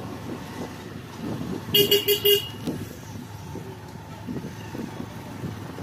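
A vehicle horn beeps four quick times about two seconds in, over the steady low road and engine noise of riding along a busy village road.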